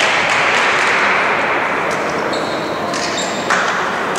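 Cheering and shouting echoing in a sports hall after a volleyball rally. It swells at the start, dies down, and swells again near the end. A few short high squeaks come in between.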